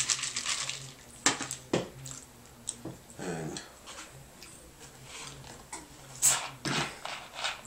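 A plastic cup of ice is set down on a tray with a couple of knocks and clinks. About three seconds in comes a short falling whine. Near the end, a brief fizzing hiss as the cap of a plastic Fanta soda bottle is twisted open.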